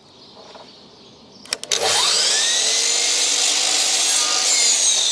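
DeWalt sliding compound mitre saw switched on with a click about a second and a half in, its motor whining up to speed and running as the blade is brought down through a length of dado rail. The whine's pitch starts to sink near the end.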